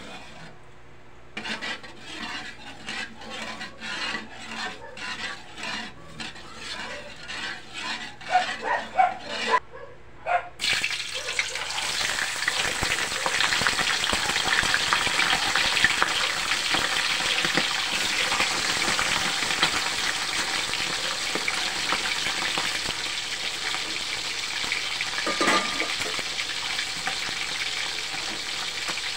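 Metal spatula scraping around a wok of oil in quick, even strokes, about two a second. Then a whole fish goes into the hot oil and it sizzles loudly and steadily, with a short louder burst near the end as a second fish goes in.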